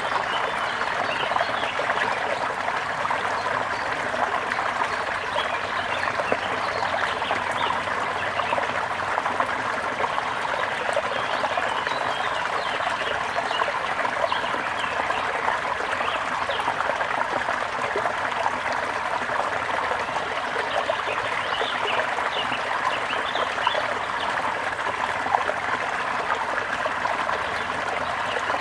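Water trickling steadily in a small stream, with birds chirping over it.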